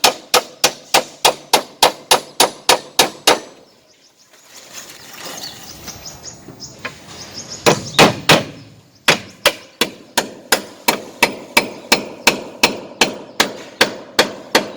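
Hammer driving nails into wood, struck steadily about three times a second. The hammering stops for a few seconds, a couple of heavier knocks come after the pause, and then the steady hammering resumes.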